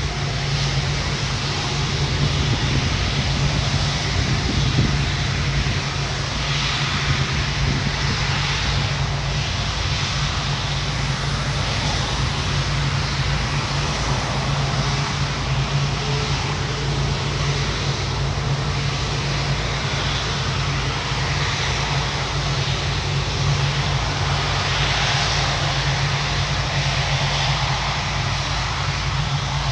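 Two Rolls-Royce Trent 700 turbofans of an Airbus A330-200 running steadily at low taxi power as the airliner rolls slowly: a constant jet drone with a steady low hum underneath.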